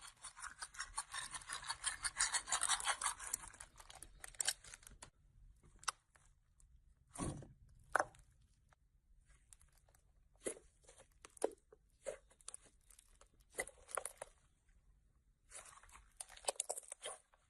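Slime being squeezed and worked by hand, crackling and popping: a dense run of crackles for about the first four seconds, then separate pops and crackles every second or so.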